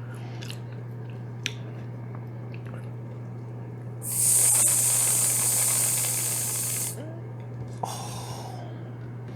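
Aerosol can of whipped cream spraying for about three seconds, a loud hiss, then a second short, fainter squirt.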